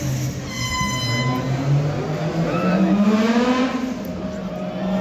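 A rally car's engine revving, its pitch rising and then falling away around the middle. A short, steady high beep sounds about half a second in.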